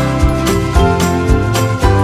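Background music: held melodic notes over a steady beat of about two strokes a second.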